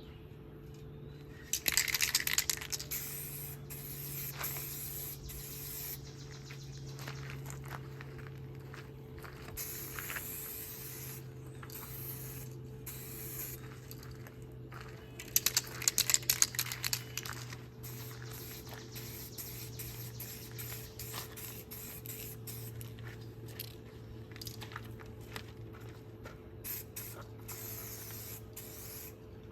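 Aerosol spray can spraying the car trim in several passes, loud hissing bursts about two seconds in and again around the middle, with shorter puffs between, over a steady low hum.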